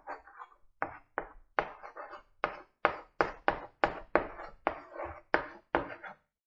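Chalk writing on a blackboard: a quick series of sharp taps and short scratchy strokes, about three a second, as letters are chalked on.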